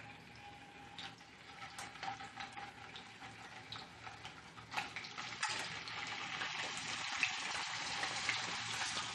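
Chicken pieces sizzling in hot oil in a frying pan. The sizzle gets much louder about halfway through as more pieces go in, with scattered light clicks of metal tongs.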